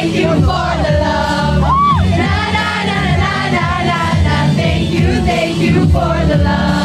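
Loud pop music with heavy bass and a crowd of voices singing along. About two seconds in, one voice whoops up and back down.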